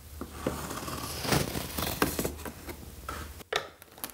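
Corrugated cardboard being pressed, rubbed and handled, with scratchy pencil strokes on the cardboard as a guide line is drawn; irregular rustling and scraping.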